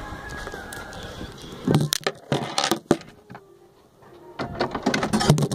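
Irregular clicks, knocks and rattles in two clusters, about two seconds in and again near the end, with a quieter stretch between: handling noise of hands and the recording device against the ride's plastic body.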